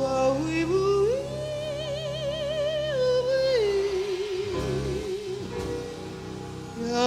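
Female jazz singer holding long wordless notes with wide vibrato in a live performance: a rising glide about a second in to a held high note, then a step down to a lower held note, and a new rising phrase near the end.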